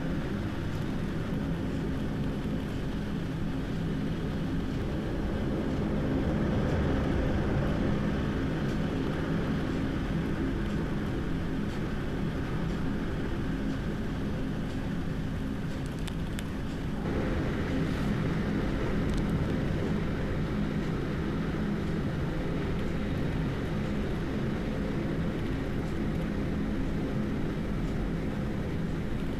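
Strong storm wind gusting through trees, a continuous deep rushing noise heavy with low rumble from the wind hitting the microphone, swelling a little about six seconds in and again a bit after seventeen seconds.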